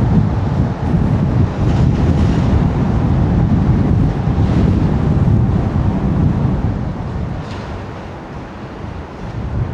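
Strong wind buffeting a microphone: a loud, gusting low rumble, easing somewhat in the last few seconds.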